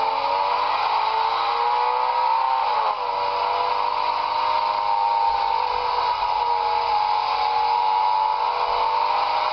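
Ferrari engine accelerating hard, heard through a tablet's small speaker: the engine note climbs, drops at a gear change about three seconds in, then climbs again more slowly.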